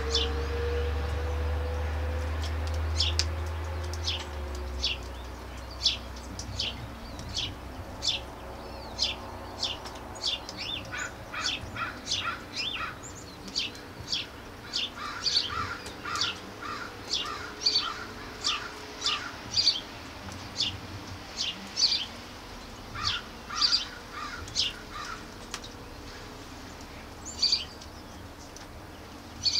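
Birds chirping outdoors: a steady series of short, sharp high chirps, roughly two a second, with a second, lower chirping call joining in bursts several times. A low rumble underlies the first few seconds and fades out.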